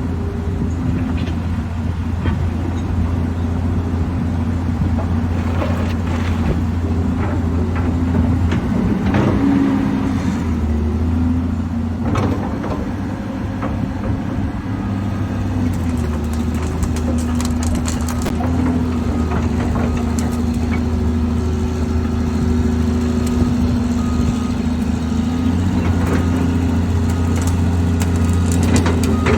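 Diesel engine of a 2006 Caterpillar 330C excavator running steadily, its note shifting several times as the machine works, with scattered clanks and knocks.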